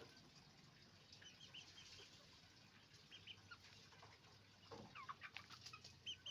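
Chickens calling faintly: many short high peeps and chirps scattered through, with a louder downward-gliding call and a few sharp scratches about five seconds in.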